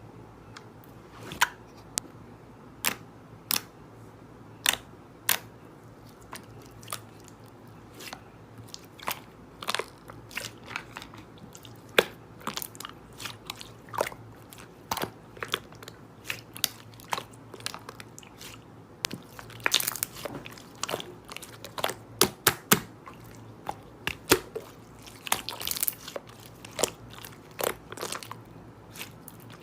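Crunchy food bitten and chewed close to the microphone: irregular sharp crunches, spaced out at first and coming faster in the second half.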